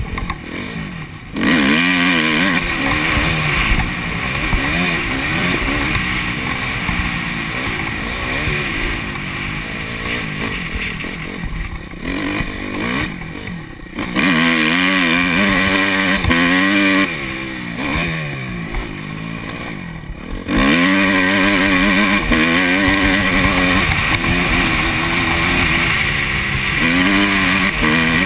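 Honda CRF250 dirt bike's four-stroke single-cylinder engine under way, its pitch rising and falling as the throttle opens and closes through the gears, easing off briefly a few times, with wind rush on the helmet-mounted camera.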